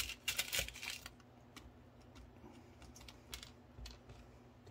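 Fingers picking through a small clear plastic box of little nails: a quick cluster of light clicks and rattles in the first second, then a few scattered faint ticks.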